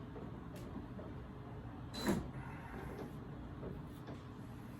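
Faint handling noises from a camper shell lock and handle being worked: a light click about half a second in, then a single short knock about two seconds in, over a steady low hum.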